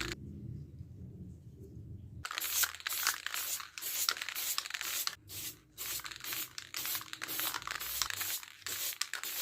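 Aerosol can of clear lacquer spraying in short hissing bursts with brief pauses between them, laying down a thin clear coat. The spraying starts about two seconds in, after a low hum.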